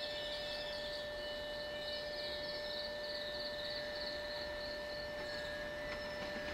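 Night insects chirping in a steady high, pulsing trill, over a constant humming tone.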